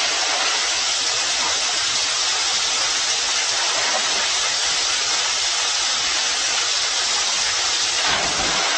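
Water running down a swimming-pool waterslide and pouring off its end into the pool: a steady rushing splash.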